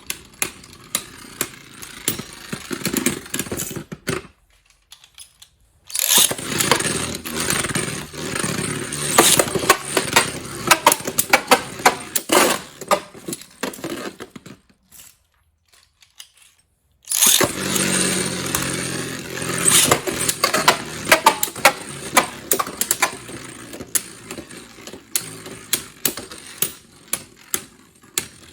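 Beyblade Burst spinning tops whirring and clashing in a plastic stadium: a rattling whir full of sharp clacks. It breaks off twice into near silence, about four seconds in and again around fifteen seconds, and each time starts again suddenly and loudly.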